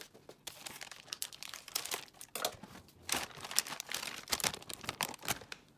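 Plastic packaging of a garlic naan packet being cut open and handled, crinkling irregularly.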